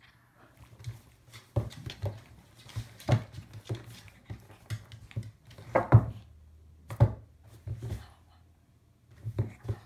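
Shih Tzu scuffling and pouncing on a wooden floor while playing with a man's hands: an irregular run of thumps and knocks, the loudest about six and seven seconds in.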